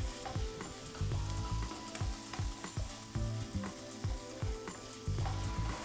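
Cherry tomatoes, sliced onion and chillies sizzling in oil in a frying pan, with metal tongs clicking and scraping against the pan as the food is stirred.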